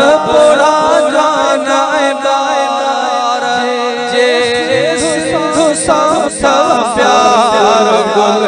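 Men singing a Sindhi devotional chant (molood) without instruments: a lead voice wavers and ornaments the melody over a steady held drone.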